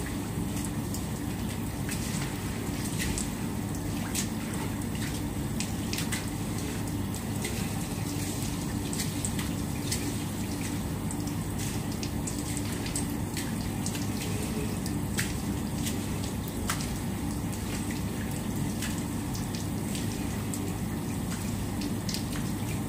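Steady rushing, water-like noise over a constant low hum, with scattered light taps and scrapes from a long-handled floor broom working a tiled floor.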